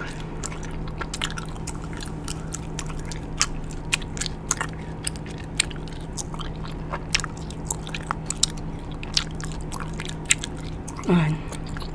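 Close-miked gum chewing: a mouthful of Big League Chew shredded bubble gum being chewed and smacked, giving quick, irregular wet clicks and smacks. Near the end there is a brief hum of the voice.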